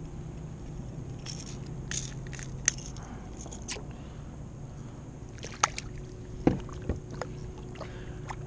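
Scattered small clicks, scrapes and knocks of a small speckled trout being handled, unhooked and let go over the side of a plastic kayak. The sharpest knocks come in the second half.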